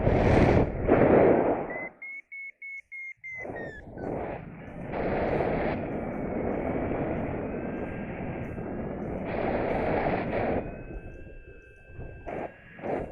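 Wind buffeting the microphone during a paraglider flight in strong wind, the loudest gusts in the first two seconds. About two seconds in, the flight variometer beeps in a short run of high tones. Fainter steady electronic tones run under the wind noise later on.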